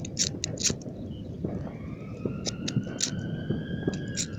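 Fireworks popping and crackling in scattered sharp cracks. From about a second and a half in, a siren-like wailing tone rises slowly, holds, and falls back near the end.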